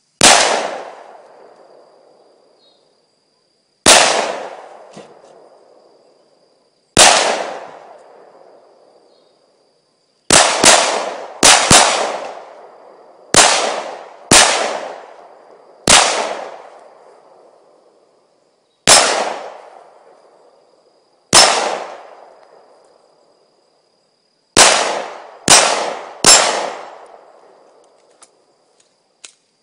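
About fifteen gunshots fired at a slow, irregular pace, some in quick pairs, each with a long echoing tail that dies away over a couple of seconds.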